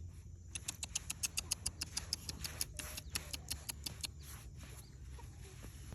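A quick run of light, sharp taps, several a second, starting about half a second in and going on steadily.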